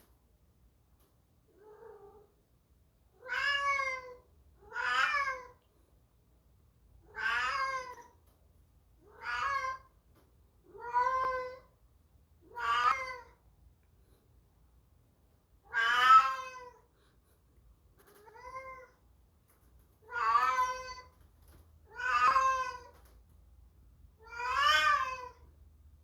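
A domestic cat meowing loudly over and over: about a dozen drawn-out meows, each about a second long and spaced a second or two apart, each rising and then falling in pitch. The first meow and one near the two-thirds mark are fainter.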